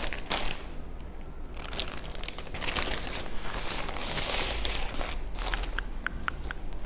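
Packaging being handled and unwrapped from a garment: crinkling and rustling with scattered sharp crackles, and a louder rustle about four seconds in.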